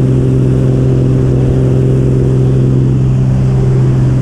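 Mooney M20K Encore's turbocharged six-cylinder engine and propeller running as the plane rolls along the runway: a steady drone with a strong low hum tone.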